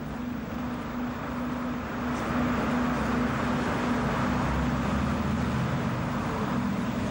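A vehicle engine running steadily with a low hum, getting louder about two seconds in.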